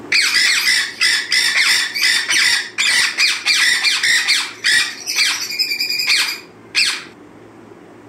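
Parrots calling: a rapid run of short, loud calls, about two a second, breaking off about six seconds in, with one last call near seven seconds.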